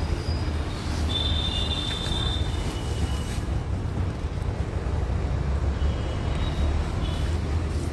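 Steady low rumble of road traffic, with a few brief thin high-pitched tones about a second in and again near the end.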